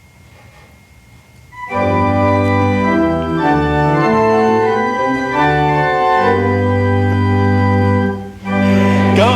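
Church organ playing slow, sustained chords with long held bass notes, starting about two seconds in after faint room tone, with a short break near the end before the chords resume.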